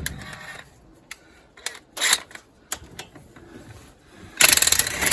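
Ratchet wrench clicking as loosened bolts are run out of a blown Ford 351 Windsor engine. Scattered clicks and knocks give way near the end to a rapid burst of ratchet clicking lasting about a second.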